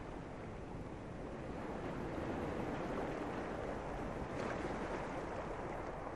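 Sea surf washing ashore: a steady rushing that swells a little midway, then eases.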